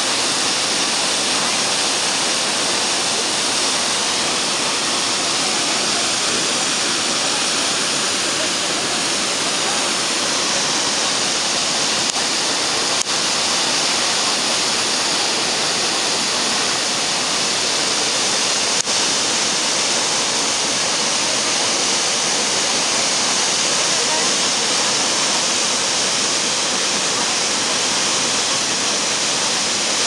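Tall waterfall plunging down a cliff face: a loud, steady rush of falling water that doesn't change.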